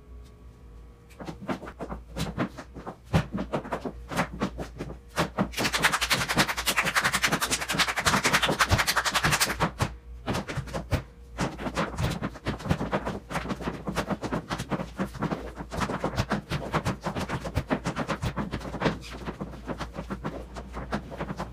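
Flamenco footwork in heeled shoes on a wooden floor, mixed with rhythmic hand clapping (palmas): a fast, uneven run of sharp taps and claps, densest and loudest from about six to nine and a half seconds in.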